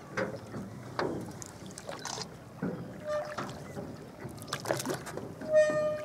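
Irregular knocks and light water sounds, with one short, steady-pitched call about five and a half seconds in.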